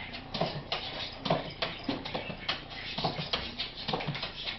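Small dog jumping again and again against a wooden kitchen cabinet: a quick, uneven run of knocks and claw scrabbles, two or three a second.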